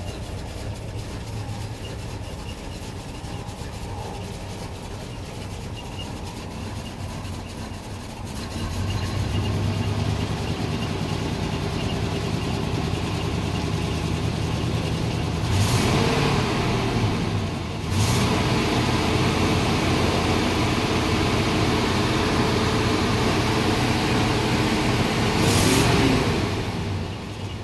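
Chevrolet C10 pickup's factory 350 small-block V8 running, heard from inside the cab. About eight seconds in it picks up to a faster, steady speed. It is revved briefly twice, once near the middle and once near the end, then settles back down.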